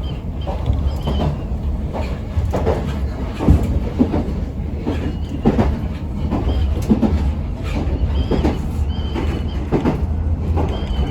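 Yoro Railway local train running along the line, heard from inside the car: a steady low rumble with irregular wheel knocks over the rail joints. A thin, wavering high squeal from the wheels comes and goes.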